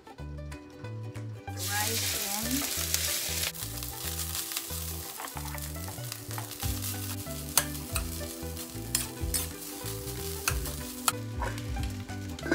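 Cooked rice hitting hot oil in a wok and sizzling, starting suddenly about a second and a half in and loudest for the first two seconds, then settling into a steady sizzle. Scattered sharp clinks against the wok as the rice is added and worked.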